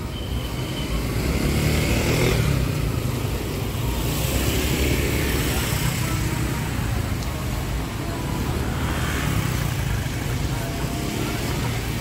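Road traffic passing, the vehicle noise swelling and fading several times over a steady low rumble.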